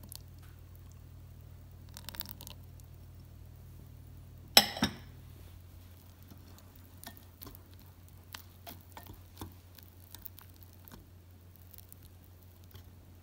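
A wire whisk stirring thick chocolate batter in a ceramic bowl, the tines ticking against the bowl again and again, with one sharp clink about four and a half seconds in. A low steady hum runs underneath.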